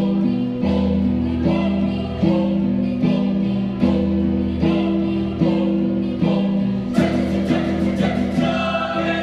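A youth choir singing in several parts, with a steady pulse about every 0.8 seconds.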